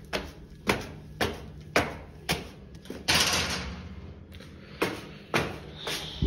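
Flip-flop footsteps slapping on concrete stairs, about two steps a second. About three seconds in there is a short scraping rush, then a few more steps.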